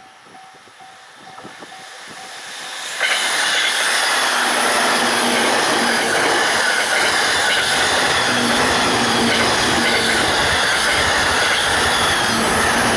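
Japanese level-crossing warning bell ringing in a steady, even pulse, then a Joban Line train passes at high speed: about three seconds in, a loud rush of wheels and rail noise sets in suddenly and runs on steadily.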